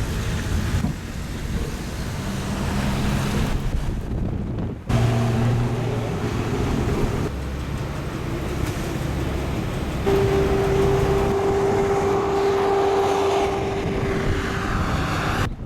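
Car driving, with engine and road noise heard from inside the cabin and wind buffeting the microphone. A steady hum joins about ten seconds in and fades near the end.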